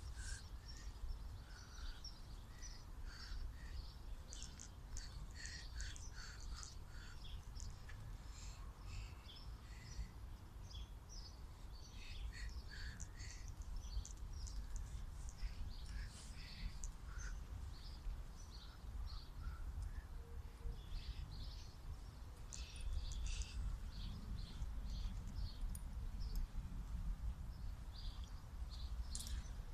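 Many birds chirping and calling from the trees, with short high notes scattered throughout, over a steady low rumble.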